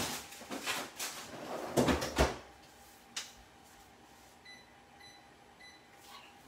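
Freezer door and drawer knocking and clattering shut, the loudest thump about two seconds in. Later come four short electronic beeps from a kitchen timer's keypad as a five-minute timer is set.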